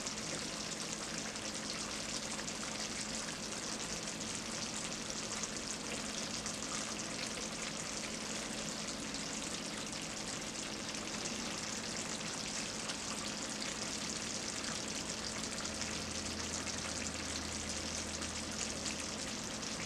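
A pan of Liberian fried cabbage with chicken, smoked pork and shrimp in an oily tomato sauce, sizzling steadily on the heat with a fine, even crackle.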